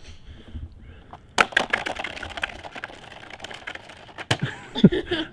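A quick run of sharp clicks and cracks on ice-glazed pavement, starting about a second and a half in and lasting about a second, then scattered ticks and one loud crack near the end.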